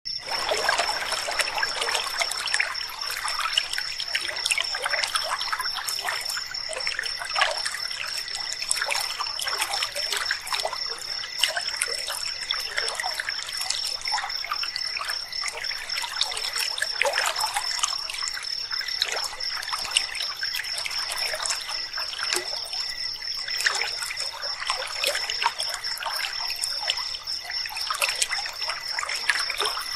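Shallow river water trickling and babbling steadily, with a continuous high-pitched, slightly pulsing trill of night insects over it.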